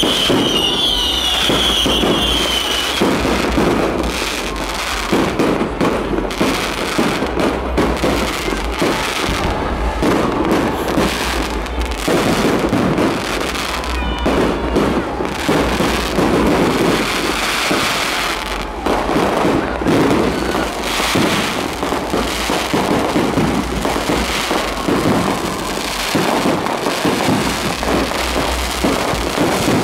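Fireworks display: a continuous barrage of bangs and crackling from aerial shells bursting overhead. A wavering high whistle sounds through the first few seconds.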